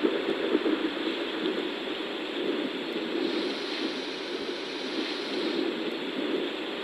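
Yogasleep Travel Mini white noise machine playing a steady rushing hiss, its highs turning brighter for a couple of seconds midway.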